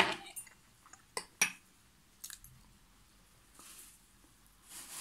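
A fork clicking and tapping against a serving plate, several sharp clicks in the first two and a half seconds, followed by soft eating sounds near the end.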